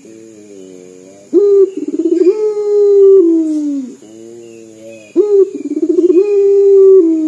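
Caged Barbary dove (local 'puter') cooing twice. Each time a soft, low rolling murmur leads into a sudden loud, long drawn-out coo that sags and falls away in pitch at its end: the mournful, crying-like call that 'gacor' puter are kept for.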